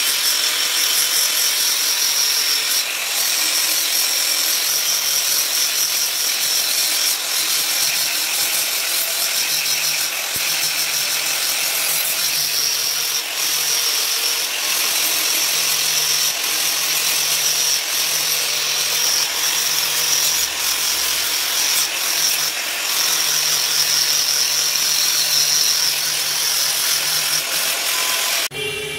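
Handheld angle grinder running steadily with its grinding disc pressed against the steel blade of a khara, sharpening it: a high whine over the hiss of disc on steel, with a few brief dips as the pressure eases. It cuts off abruptly near the end.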